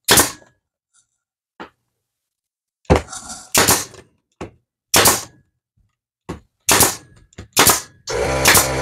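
Pneumatic nail gun firing nails into a wooden box, about six sharp shots at uneven gaps of a second or so. Near the end, a motor starts up and runs steadily, fitting the air compressor kicking on to refill.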